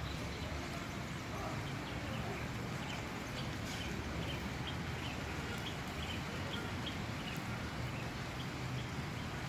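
A bird chirping over and over, about two short high chirps a second, over a steady outdoor rumble.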